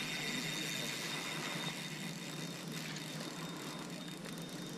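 Steady outdoor background noise with a faint, thin high tone, with no distinct knocks or other separate sounds.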